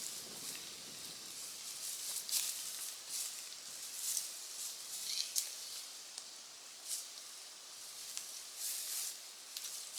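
Irregular rustling and crunching, several sharp hissy crunches spaced a second or so apart over a faint outdoor hiss.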